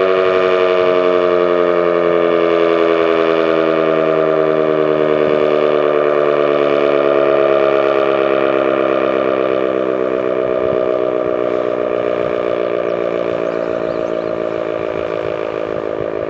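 Werden Electric B-115 single-tone omnidirectional electric siren sounding loudly, its pitch sliding slowly down as it winds down, growing quieter over the last several seconds.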